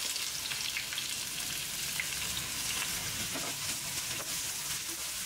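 Sliced onions sizzling steadily in hot oil in a frying pan, with a few light scrapes as a slotted spatula stirs them.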